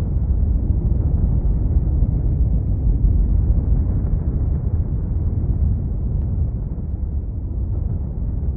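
A loud, steady, deep rumble with no clear pitch, easing off a little in the second half.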